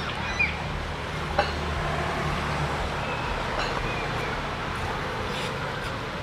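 Road traffic: a motor vehicle's engine running with a steady low hum that fades out about halfway through, over general traffic noise. Two short sharp knocks come in the first second and a half.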